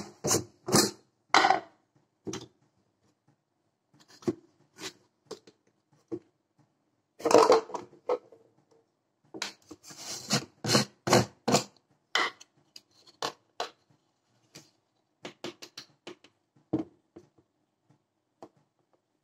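Plastic supplement tubs, a scoop and a plastic shaker bottle being handled: lids twisted off and set down and powder scooped into the shaker, giving scattered clicks, knocks and scrapes.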